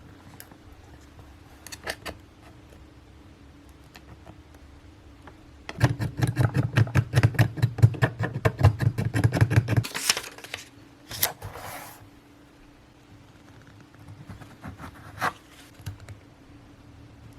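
Hand tool worked against the laptop's hinge area: a run of rapid scraping strokes lasting about four seconds, with scattered clicks and taps before and after, and two short hissy scrapes just after the run.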